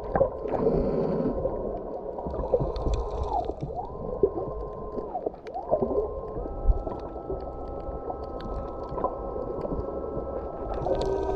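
Underwater sound picked up by a snorkeler's camera: muffled gurgling water noise and crackle, with steady whining tones that dip and rise in pitch a few times and then jump to new pitches.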